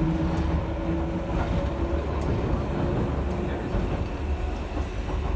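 Eizan Electric Railway electric train running: a steady low rumble with a faint steady hum over it and a few light clicks.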